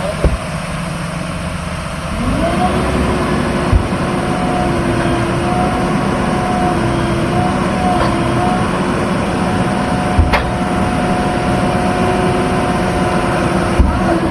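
Heavy diesel engine of an earthmoving machine running. About two seconds in it revs up and then holds steady at high revs under working load, with a few short knocks.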